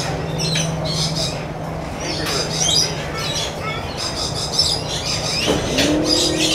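A chorus of many birds, short chirps and squawks overlapping throughout, over a steady low hum.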